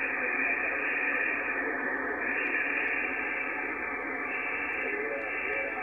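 Icom IC-746 HF transceiver receiving on 40-metre lower sideband (7.255 MHz): its speaker plays a steady hiss of band static, narrowed by the receive filter. Faint, garbled sideband voices come through near the end.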